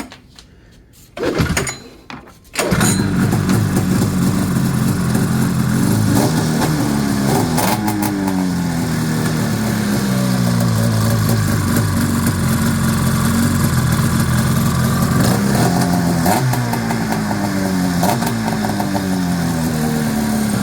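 2002 Arctic Cat Mountain Cat 800's two-stroke twin, fitted with an MBRP race can exhaust, being started: two short bursts, then it catches about three seconds in and runs. It then idles while the throttle is blipped about six times, each rev falling back to idle.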